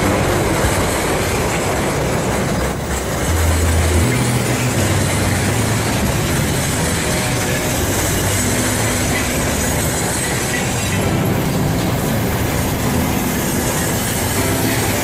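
Freight train wagons rolling past close by: a steady, loud noise of steel wheels running on the rails, with no break as the container flats give way to boxcars and tank cars.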